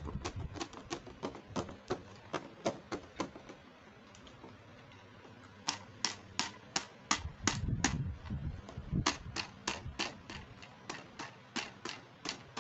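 A quick series of sharp plastic clicks or taps, about four a second, from toy makeup pieces and packaging being handled. The clicks stop for about two seconds in the middle, then start again, with a brief low rumble of handling partway through.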